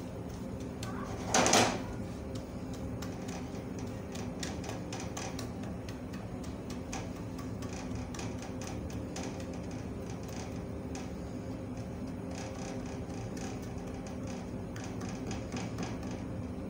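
Wooden spoon stirring and scraping melting sugar in a stainless-steel pan, with one louder scrape about a second and a half in and small ticks and scrapes after it, over a steady low hum.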